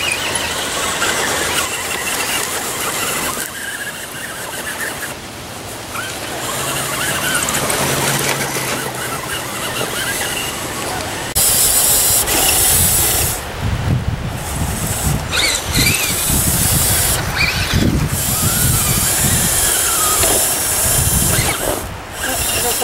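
Electric motors and gearing of RC scale rock crawlers whining as they crawl over rocks and a log. From about halfway through, wind gusts buffet the microphone with uneven low rumbles.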